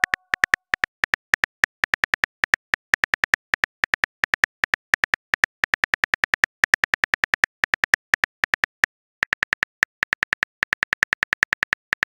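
Phone-keyboard typing clicks from a chat-story app's typing sound effect: quick, sharp, evenly pitched ticks at about six to seven a second, with a few short pauses, as a text message is typed out letter by letter.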